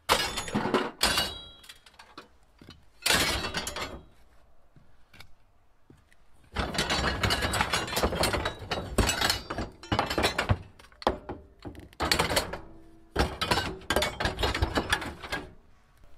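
Aluminium bicycle frame tubes and parts dropped into a metal scrap container, clattering against the scrap bike frames already inside: a few separate crashes in the first four seconds, then a long run of rattling and clanging in the second half.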